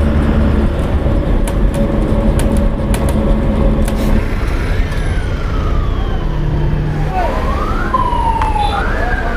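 Diesel engine of a state-transport bus running low and steady, heard from inside the cabin as the bus eases into a toll plaza lane. From about halfway, a siren-like wail rises and falls several times over the engine.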